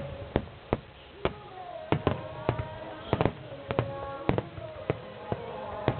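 Fireworks shells bursting in quick succession, about two sharp bangs a second at uneven spacing, with music playing underneath.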